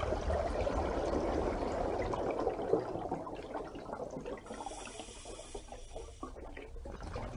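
Water running and splashing, a dense bubbling rush that gets softer about four seconds in.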